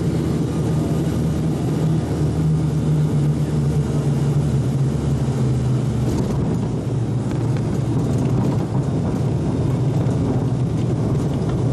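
Turboprop airliner's engines and propellers heard from inside the cabin, a steady low drone with a hum that changes pitch about six seconds in.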